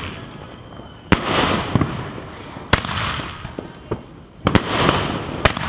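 Aerial fireworks bursting overhead: four sharp bangs about a second and a half apart, each followed by a fading crackling hiss, with a few smaller pops in between.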